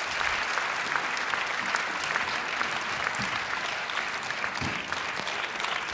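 A large audience applauding steadily: dense, even clapping from many hands.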